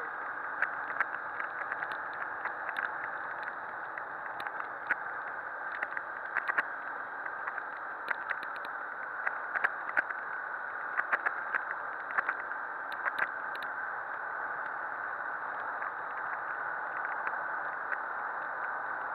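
Steady rush of riding wind and road noise on a rider-mounted camera aboard a Honda CBF250 motorcycle under way, with the bike's engine running beneath it. Short sharp clicks come and go through the middle of it.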